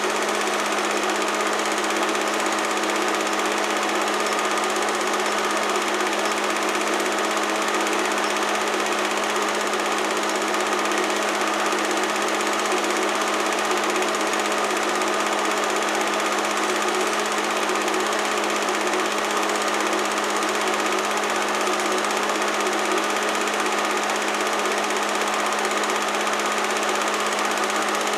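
Home-movie film projector running steadily, its mechanism whirring and clicking at an unchanging pace.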